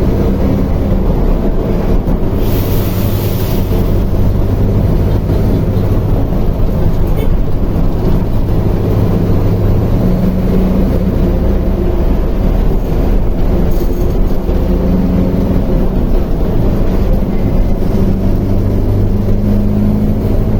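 Mercedes-Benz OF 1721L bus chassis' BlueTec 5 diesel engine running steadily, its speed rising and falling a little. A short hiss comes about two seconds in.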